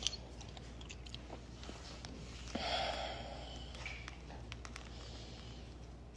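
A quiet room with faint small clicks and mouth sounds, and one short, breathy sniff through the nose about two and a half seconds in.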